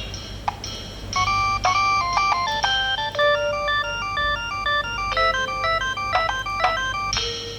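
Nokia 7210 ringtone played through a Nokia 2760 phone's loudspeaker: a quick synthetic tune of short, clean notes in several voices at once, over a faint steady low hum.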